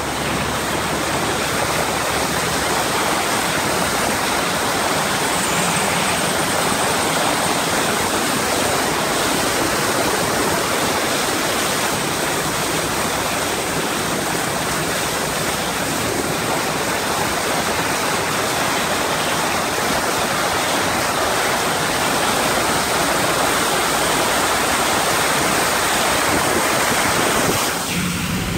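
Floodwater rushing and spraying off the wheels as a vehicle drives through a flooded road, a steady heavy wash that eases slightly near the end.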